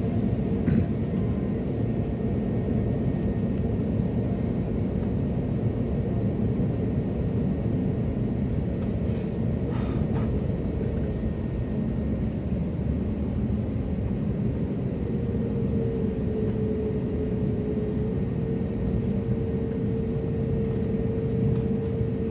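Airliner cabin noise while the plane taxis on the ground: a steady low rumble from the engines and airframe. About two-thirds of the way through, a steady humming tone joins in and holds.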